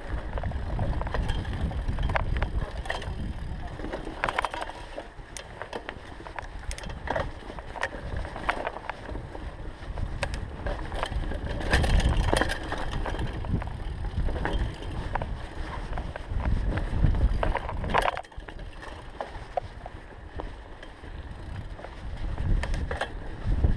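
Orbea mountain bike on Mavic wheels ridden over dirt forest singletrack: tyre noise on dirt and leaves with frequent sharp clicks and knocks from the bike rattling over bumps, and a low rumble of wind on the microphone.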